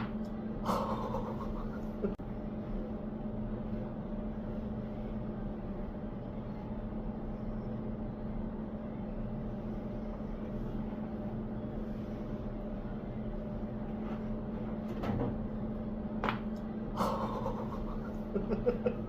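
Sharp joint cracks during a neck and back adjustment: one about a second in, then several in the last few seconds. A steady electrical hum runs underneath.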